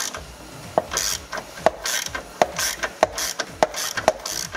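Hand ratchet loosening the nut on a car's negative battery terminal post, its pawl clicking on each swing of the handle, about two strokes a second.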